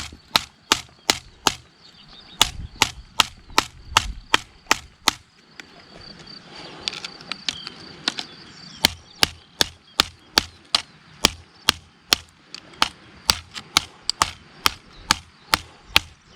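Wooden stick repeatedly striking the spine of a Victorinox Forester pocketknife to baton its blade into a brick: sharp knocks about two to three a second, pausing for a few seconds midway, then resuming. The blade does not go in.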